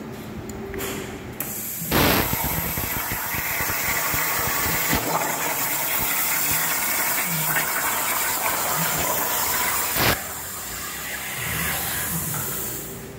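Izumi Cut 40 inverter plasma cutter cutting 1 mm steel plate at 25 A. Air starts hissing, then the arc strikes with a sharp click about two seconds in and cuts with a loud, steady hiss for about eight seconds. It stops with a click, leaving a quieter air hiss.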